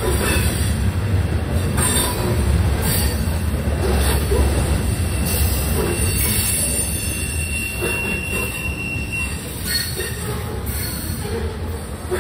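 Covered hopper cars of a freight grain train rolling past: a steady low rumble of steel wheels on rail with scattered clicks. A thin, high-pitched wheel squeal comes in about halfway through and lasts a few seconds.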